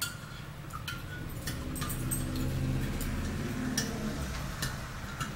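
Metal spoon stirring hot cocoa in a ceramic mug, clinking lightly against the inside of the mug about twice a second in an uneven rhythm.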